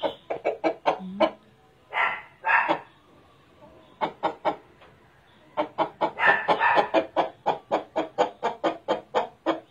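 Đông Tảo chickens clucking: two longer calls about two seconds in, then a run of short, quick clucks at about three or four a second in the second half.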